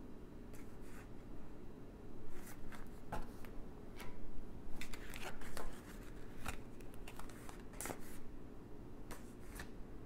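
A deck of tarot cards being shuffled and handled: a run of quick papery snaps and rustles, busiest and loudest between about two and six seconds in.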